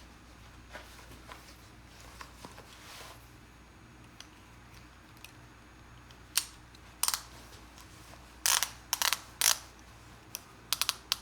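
Ratchet belt buckle clicking as the leather strap is pushed through to tighten it: a few sharp clicks from about halfway through, some single and some in quick clusters.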